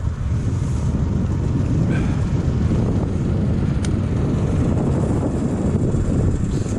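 Steady low rumble of a snowmobile running, with wind buffeting the microphone. There is a single sharp click a little before the midpoint.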